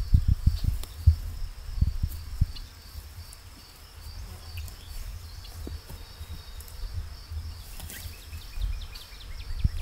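Dull, soft thuds of cut peat sods being lifted and set upright against each other to dry on grass, coming thick and fast in the first couple of seconds. Birds chirp briefly near the end.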